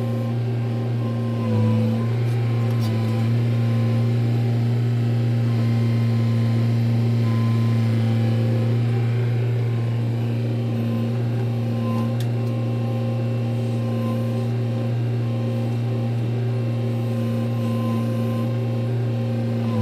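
Caterpillar hydraulic excavator's diesel engine running steadily under hydraulic load as it digs soil and loads it into a kei dump truck, with a brief dip in engine note about a second and a half in and a few faint knocks of soil and stone.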